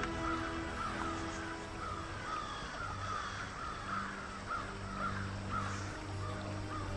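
A bird calling in a rapid series of short, arched notes, about three a second, over a steady low hum.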